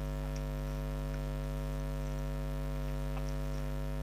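Steady electrical mains hum, a low buzz with many evenly spaced overtones, with a few faint ticks.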